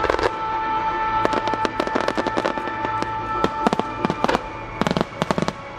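Aerial fireworks shells bursting in irregular clusters of sharp bangs and cracks, busiest about a second in and again near the end, over music with long held tones.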